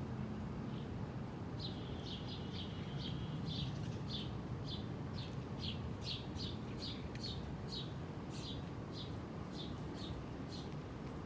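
A bird calling in a quick series of short chirps, about two a second, starting a couple of seconds in and stopping near the end, over a steady low background noise.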